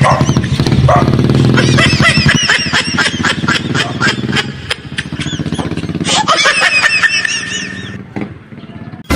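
DJ dance remix with a fast beat, layered with many quick high chirps that rise and fall and a low engine-like rumble. The track thins out near the end.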